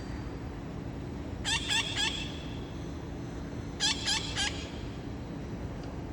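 Parrots calling: two quick runs of three short calls each, the first about a second and a half in and the second about four seconds in.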